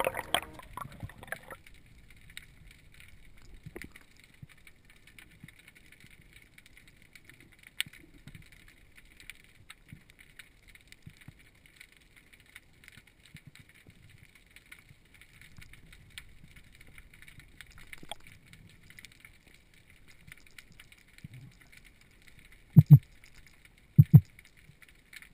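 Underwater ambience heard through a diving camera: a faint steady hiss with scattered faint clicks, then two dull low thumps about a second apart near the end.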